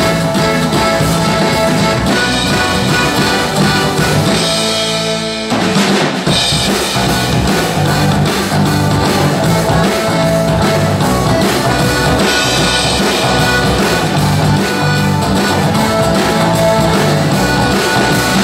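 Live folk-rock band playing an instrumental passage with drum kit, acoustic guitar, acoustic bass guitar and accordion, with a steady beat. About five seconds in the band holds a chord briefly, then the full beat comes back in.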